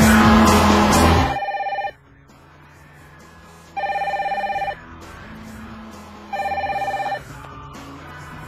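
Background music cuts off suddenly about a second in. Then a mobile phone ringtone sounds three times, about two and a half seconds apart: an electronic trilling ring of about a second each time.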